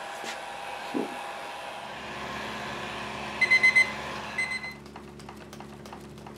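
Electric heat gun blowing a steady hiss as it warms a loose joint on a mahogany chair to soften the old glue. About three and a half seconds in come four quick high electronic beeps, then two more, and soon after the hiss falls away, leaving a low hum and a few light clicks and knocks.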